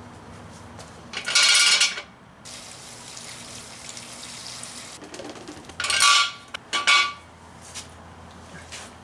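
Plastic tub, funnel and plastic gas can knocking and clattering as they are handled, loudest about a second in and twice around six to seven seconds in. Between these comes a faint hiss of gasoline being poured from the tub through a funnel into the can.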